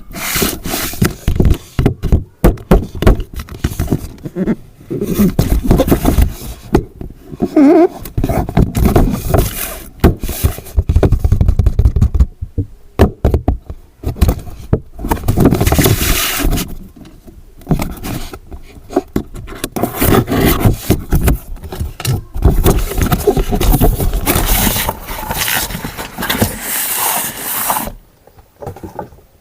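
Handling noises: repeated scraping, crackling and knocks in loud, irregular bursts, pausing briefly about halfway through and again near the end.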